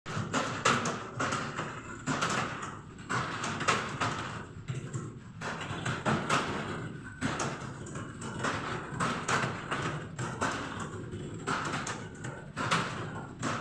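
Computer keyboard being typed on fast: a continuous, irregular clatter of key presses, several a second.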